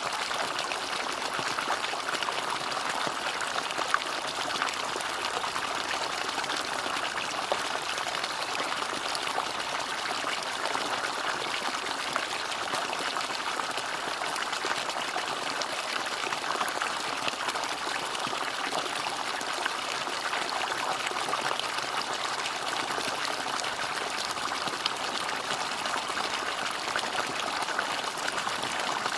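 Bamboo water fountain running: a steady trickle and splash of falling water, with a fine patter of droplets that holds an even level throughout.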